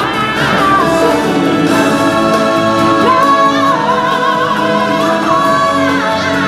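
Song from a live stage musical: singers holding long, wavering notes over a full musical accompaniment.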